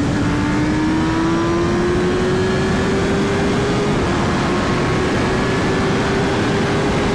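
Kawasaki Ninja sport bike engine pulling at steady revs, its pitch climbing slowly as the bike gains speed, with a small change about four seconds in. Steady wind and road noise run underneath.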